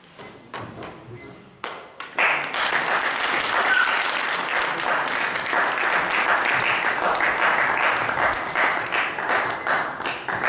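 Audience applauding: a few scattered claps at first, then steady applause from about two seconds in.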